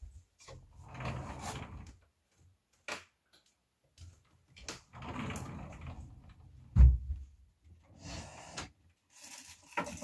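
Hands working on a room air conditioner's opened indoor unit: a few second-long bouts of rustling and scraping of plastic, some sharp clicks, and a heavy thump about seven seconds in, the loudest sound.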